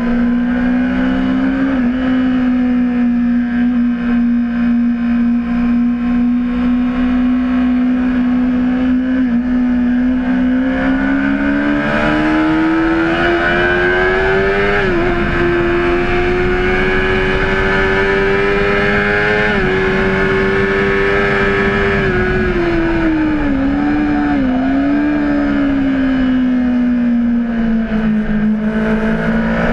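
Honda CBR600RR's inline-four engine running hard on track. It holds a steady high pitch for about ten seconds, then climbs, with two quick steps that sound like upshifts. Near the end it drops back with a couple of short blips, as on downshifts, and settles to a steady pitch again.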